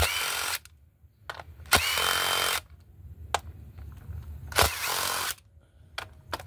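DeWalt 20V cordless drill spinning a 10 mm socket to back out ignition-coil hold-down bolts, in three short runs of about a second or less. In each run the motor whine rises to a steady pitch, with a few light clicks in the gaps between.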